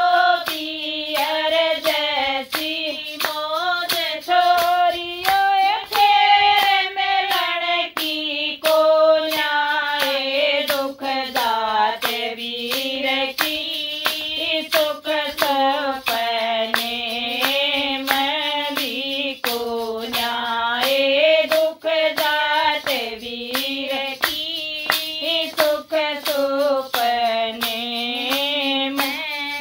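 A woman singing a Haryanvi folk song in long, wavering held notes, with steady hand claps keeping the beat.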